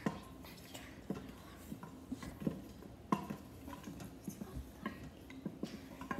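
A wooden spatula stirring whole spices in oil and ghee in an Instant Pot's stainless steel inner pot, scraping and knocking against the pot in irregular taps, with one sharper knock about three seconds in.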